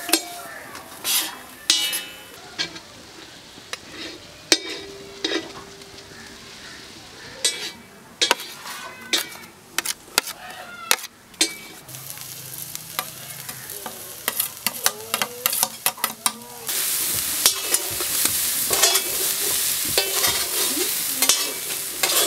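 Chicken pieces frying on a large flat iron griddle (tawa), with a broad metal blade repeatedly tapping and scraping on the hot iron as the meat is chopped and turned. The sizzle grows much louder about three-quarters of the way through.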